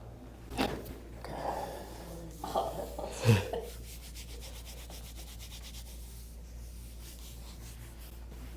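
Chiropractic adjustment of the lower thoracic spine: hands rubbing and pressing on the patient's back, with sudden joint cracks, the loudest about three seconds in. A fainter rubbing follows.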